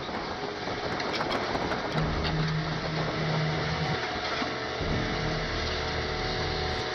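Excavator's diesel engine running steadily, its note growing stronger about two seconds in.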